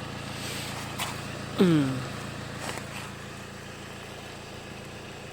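Steady low engine hum, as of a vehicle idling, with a short falling voice sound, like a sigh or exclamation, about a second and a half in.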